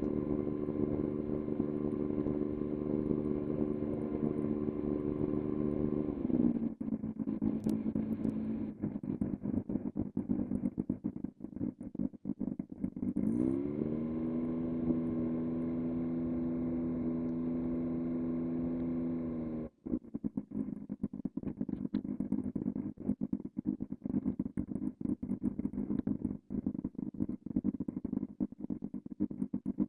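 Cessna 182's piston engine running at low taxi power, a steady even hum. Its pitch sags about six seconds in and climbs back up around thirteen seconds as power is added. It cuts off sharply near twenty seconds, leaving a fainter, rougher rumble.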